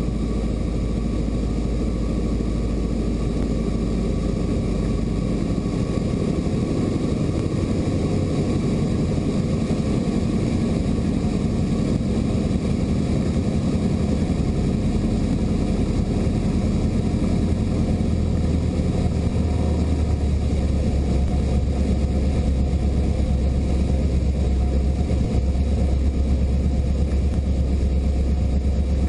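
Bushby Mustang II light aircraft's piston engine and propeller droning steadily in cruise, heard from inside the cockpit with air rushing over the canopy. The low drone shifts slightly higher about two-thirds of the way through.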